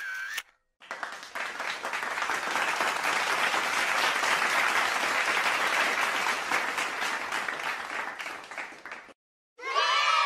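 Applause from a crowd, swelling in and fading away over about eight seconds, then cutting off. Just before the end, shouting and cheering voices begin.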